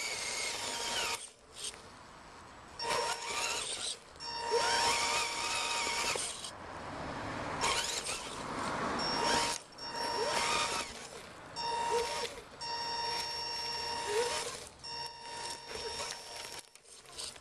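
RC crawler's electric motor and gear drivetrain whining in repeated bursts of a few seconds, stopping and starting again as it crawls over dirt and rock.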